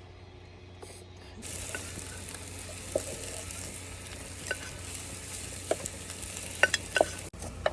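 Food sizzling as it fries in a pan, with a few sharp clicks and taps of a utensil; the sizzle comes in suddenly about a second and a half in and cuts off just before the end.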